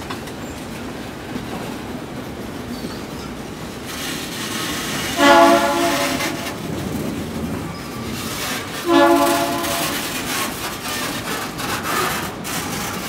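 Loaded bauxite ore wagons rolling past with a steady rumble and wheel clatter. A locomotive horn sounds twice, about five and nine seconds in, each blast under a second long.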